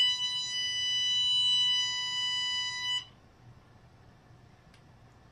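Our K9 Garnet bark collar beeping after a puff into its sensor hole: a steady electronic tone with overtones that cuts off sharply about three seconds in. On this fourth puff the beep comes with the collar's small static shock.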